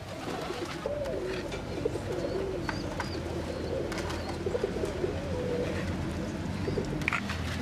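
Pigeons or doves cooing continuously, low wavering coos layered over one another, with a few light clicks and taps in between.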